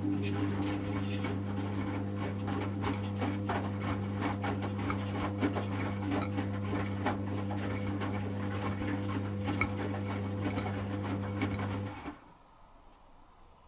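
Servis Automatic M3008B washing machine's drum motor turning the drum with a steady hum while the wet load of clothes tumbles and clatters inside, part of the slow tumble during the heating stage of a 40°C wash. The motor stops about 12 seconds in.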